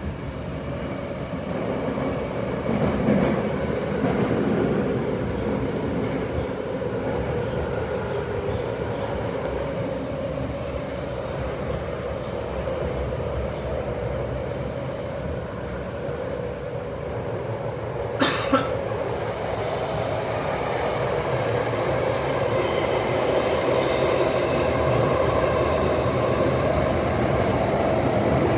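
Tokyo Metro Hanzomon Line subway car running between stations, heard from inside the car: a steady rumble of wheels and running gear that grows louder toward the end, with a faint steady whine in the later part. A short sharp double clack about two-thirds of the way through.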